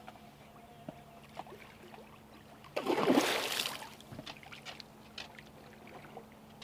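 A hooked red drum (redfish) thrashing at the surface beside the boat: one loud splash about three seconds in, lasting about a second, followed by a few faint ticks.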